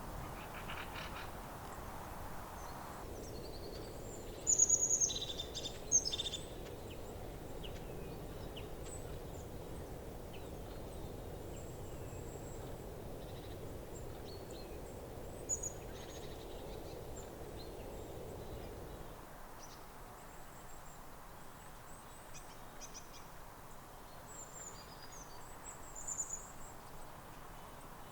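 Bird calls: a cluster of short, sharp, high calls about four to six seconds in, and a few more near the end, over steady low background noise that drops off about two-thirds of the way through.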